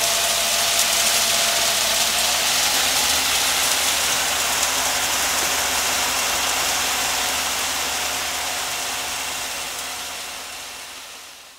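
Heavy vehicle engine running steadily under a loud rushing hiss, fading out near the end.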